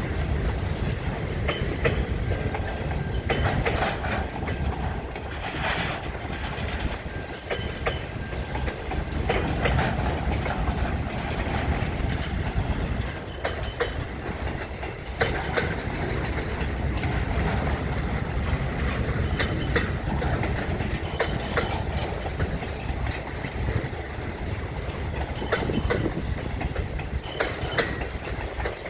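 Freight cars of a CN local train rolling past, wheels clacking irregularly over rail joints, with a faint thin squeal from the wheels now and then.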